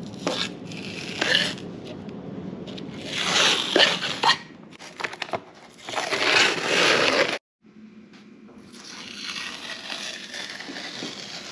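Blue painter's tape being peeled off a painted engine block in several rough tearing pulls, with crinkling as the peeled tape bunches up; the longest, loudest pulls come about three and six seconds in.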